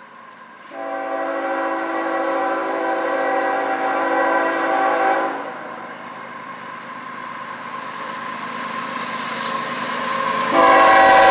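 Air horn of a CSX GE ES44AH freight locomotive sounding one long chord about a second in, lasting about four and a half seconds. Then the rumble of the approaching train grows louder, and the horn sounds again, louder, near the end as the locomotives draw close.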